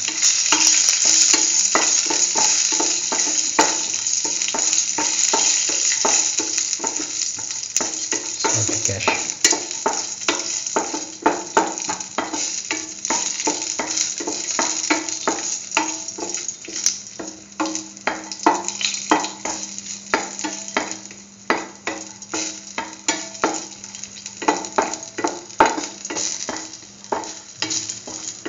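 Cashew pieces sizzling in hot ghee in a stainless steel pan, stirred with a utensil that clicks and scrapes against the metal again and again. The sizzle is loudest at first and slowly fades, leaving the clicks of the stirring more prominent.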